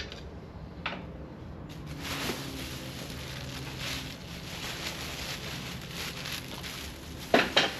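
Heavy-duty scouring pad scrubbing an aluminium wheel rim with polish, a run of rasping rubbing strokes starting about two seconds in, with a couple of sharp knocks near the end.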